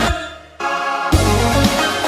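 Background music with a steady electronic beat. It thins and drops away briefly near the start, then the full beat comes back in about a second in.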